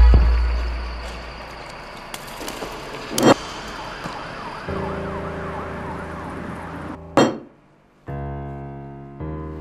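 Edited film soundtrack: a deep bass boom fading away, a sharp whoosh hit about three seconds in, and a wavering siren-like wail in a noisy wash. A held music chord comes in about five seconds in, a second whoosh hit lands near seven seconds, the sound drops out briefly, and steady music tones follow.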